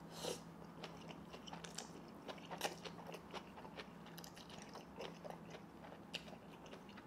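Close-miked eating sounds: slurping and chewing spicy instant fire noodles, a run of small, irregular wet clicks and smacks, over a faint steady hum.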